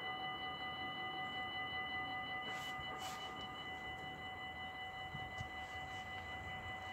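Dutch level crossing warning bell ringing steadily with several pitches at once while the half-barriers come down. One of its tones drops out about halfway through, and there are two short clicks near the middle.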